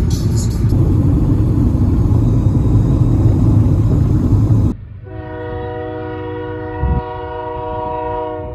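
A loud, deep rumble that cuts off abruptly about halfway through. A train horn then sounds one long, steady chord of several tones until the end, with a brief low thump near the end.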